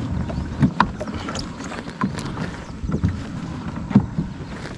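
Low wind rumble on the microphone of a plastic fishing kayak on the water, with a few short knocks and taps against the hull scattered through.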